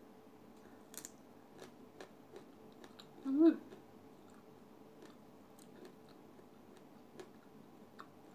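A person biting and chewing firm, crunchy mango: faint scattered wet clicks of chewing. About three and a half seconds in comes a short hummed vocal sound with the mouth full.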